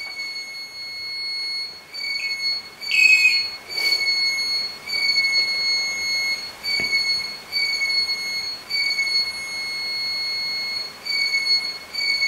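REM pod, an electromagnetic-field detector used by ghost hunters, sounding its alarm: a high electronic beep pulsing about once a second. It has been set off by a change in the field around it, which the investigators take for a presence. A brief louder sound breaks in about three seconds in.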